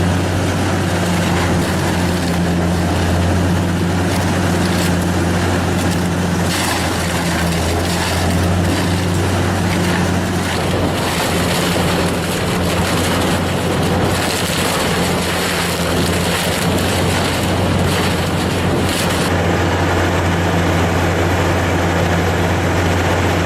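Heavy machine's diesel engine running steadily under load with a constant low drone, plus a rushing, grinding noise over it.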